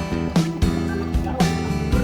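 Background music: an acoustic guitar track with a steady drum beat.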